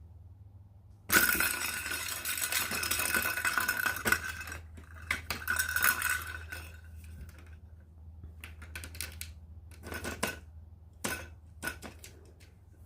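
A sudden loud clatter of hard objects about a second in, like dishes or metal things being knocked over. It lasts a few seconds, then gives way to scattered clinks and knocks.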